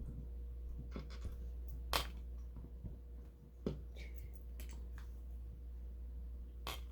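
Small plastic LEGO pieces being handled and picked through, giving a few separate sharp clicks over a steady low hum, the loudest about two seconds in.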